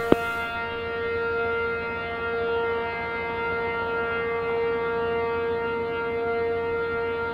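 Outdoor warning siren holding one steady, unwavering tone with a rich stack of overtones.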